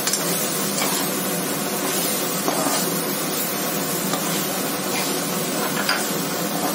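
Vegetables and masala sizzling in hot oil in a kadhai, with a steady hiss, while a spatula stirs them and scrapes against the pan now and then.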